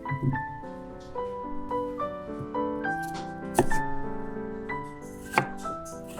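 Background music with piano-like notes, and two sharp knocks, one a little past the middle and one near the end.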